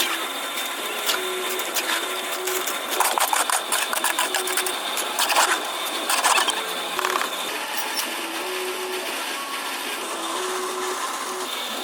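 A small machine running steadily, with spells of rapid clicking and clattering.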